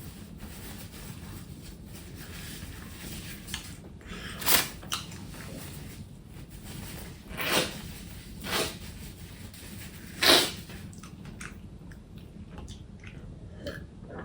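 Close-miked eating sounds: quiet chewing, broken by four short, louder noisy bursts of mouth sound.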